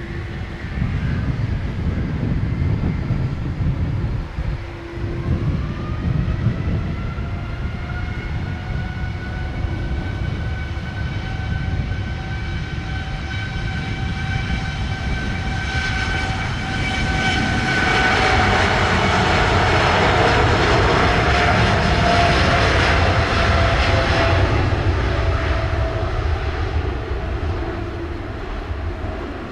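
Boeing 787-9's Rolls-Royce Trent 1000 jet engines spooling up to takeoff power: a whine that rises in pitch over the first several seconds, then a loud jet roar as the airliner accelerates down the runway. The roar is loudest a little past halfway and eases off near the end.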